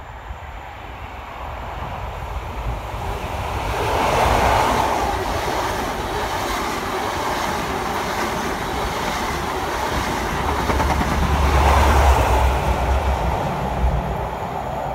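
Green GWR HST (InterCity 125) passing through at speed. The sound builds as the leading diesel power car comes by about four seconds in, the Mark 3 coaches run past steadily, and a second, deeper-rumbling peak comes about twelve seconds in as the rear power car passes, easing off near the end.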